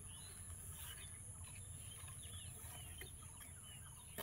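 Birds chirping faintly in short, scattered calls over a low rumble and a steady high whine, with one sharp click at the very end.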